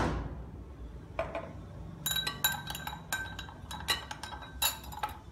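A spoon clinking again and again against a small dish, ringing at each stroke as it stirs corn flour into water to make a slurry. A sharp knock opens the sound.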